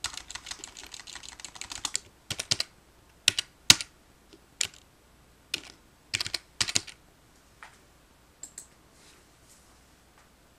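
Typing on a computer keyboard: a fast run of keystrokes for about two seconds, then single clicks and short clusters spaced out over the next several seconds, stopping a couple of seconds before the end.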